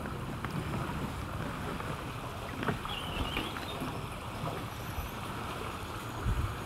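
Water moving around a kayak on a fast current, with wind buffeting the microphone and a few light knocks from the hull and paddle.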